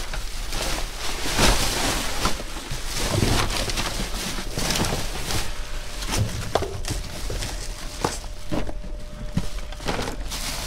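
Black plastic trash bags rustling and crinkling as gloved hands rummage through them in a dumpster, with irregular sharp crackles and knocks of cardboard boxes being moved.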